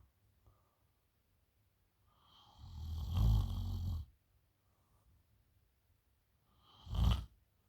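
A woman snoring in her sleep: one long snore lasting about two seconds, then a shorter, sharper snore near the end, with quiet breathing pauses between them.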